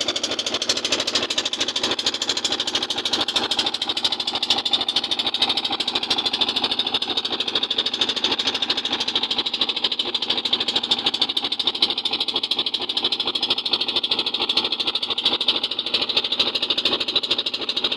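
Small fishing boat's engine running steadily, a fast even chugging with no change in speed.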